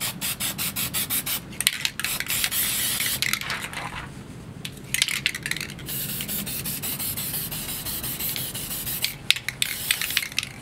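Aerosol can of oil-based spray paint spraying onto a tub of water: a quick run of short hissing spurts at first, then longer bursts of hiss with short breaks between them.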